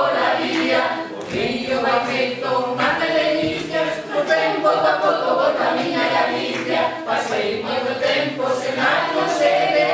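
Mixed group of men's and women's voices singing together unaccompanied, as a small choir.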